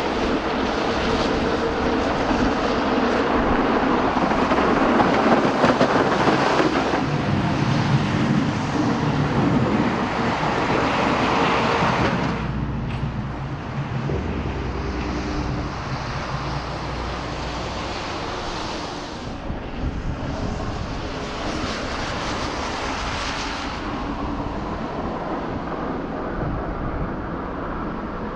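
Road vehicle driving on a snowy road: the engine runs under a loud hiss from its tyres or plow. The hiss drops away about twelve seconds in, leaving a lower, steadier engine noise.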